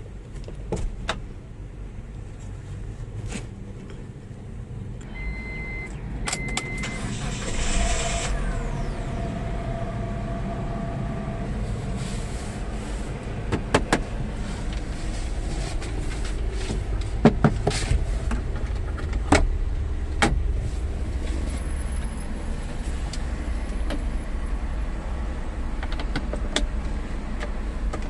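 CMC D270 van with its 2.4-litre Mitsubishi engine: a low steady engine rumble that grows louder about a third of the way in, with a short pair of beeps, a brief electric whine and scattered clicks and knocks.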